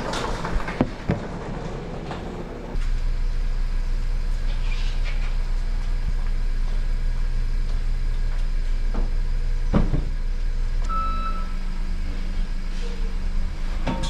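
A garage door rattles up its track for the first few seconds with a few clicks, then a steady low vehicle hum sets in suddenly and holds, broken by a single thump about ten seconds in.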